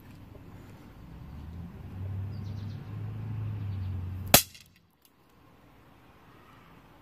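A single sharp, loud firecracker bang about four seconds in, after a low rumble that builds for a couple of seconds before it.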